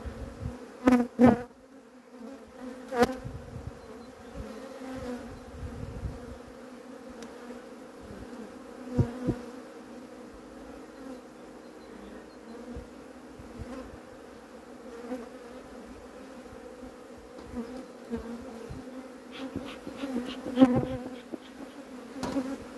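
Honeybee colony buzzing around an open hive as a frame is inspected: a steady hum, broken by several brief louder sounds.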